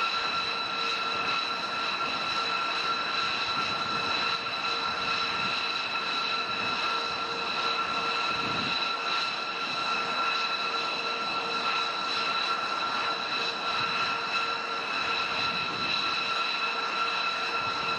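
B-2 Spirit's General Electric F118 turbofan engines idling on the ground: a steady jet whine, several high tones held over a rushing noise.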